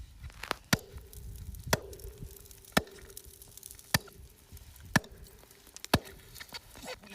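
Ice chisel chopping into ice in regular strokes, about one sharp strike a second, six strong blows with a few lighter taps between them, over a faint steady ringing hum.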